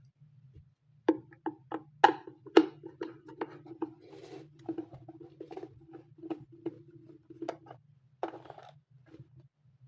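Irregular clicks, taps and scrapes of an electric kettle's base nut being unscrewed and the parts handled, with a faint steady low hum underneath.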